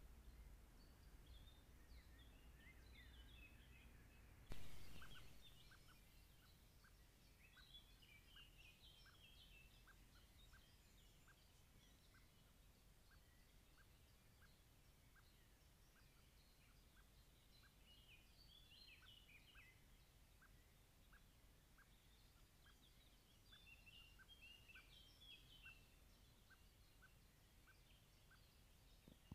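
Faint wild birdsong: scattered chirps and short trills from several birds, with a steady run of short high ticks about twice a second. A sudden loud noise about four and a half seconds in, fading over a second.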